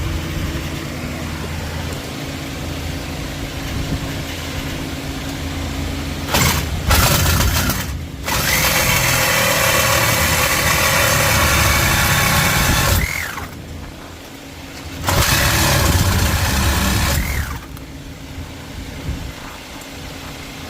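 Power cutting tool, such as an angle grinder, cutting metal: a couple of short bursts about six seconds in, then a cut of about five seconds, a pause, and a second cut of about two seconds, each winding down as it stops. A steady low hum runs underneath.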